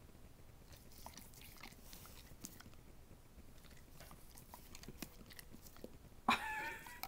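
Dog licking yogurt off a spoon: faint wet tongue smacks and clicks, irregular and repeated. Near the end a brief, louder pitched voice sound.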